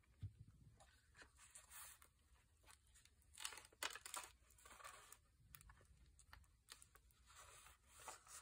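Faint rustling and crinkling of paper and cardstock being handled and pressed onto a journal page, in a few brief bursts, the clearest about three and a half to four seconds in and again near the end.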